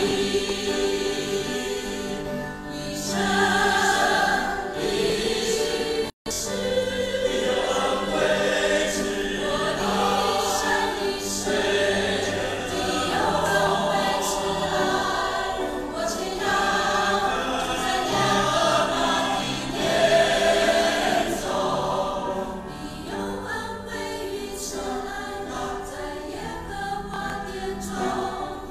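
Church choir singing a hymn in parts with instrumental accompaniment; the sound cuts out for an instant about six seconds in.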